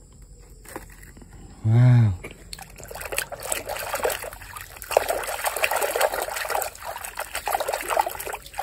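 A hand swishing and splashing in a basin of muddy water as mud-caked toy vehicles are washed, with irregular sloshing and dribbling from about two and a half seconds on. Just before that comes a short vocal exclamation.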